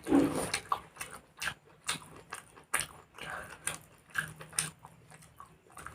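Close-miked chewing of a mouthful of food: irregular wet mouth clicks and smacks, a few each second.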